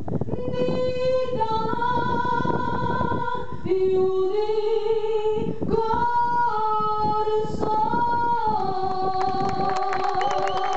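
A woman singing solo in Spanish, holding long notes that step up and down in pitch. Hand clapping starts near the end as the song closes.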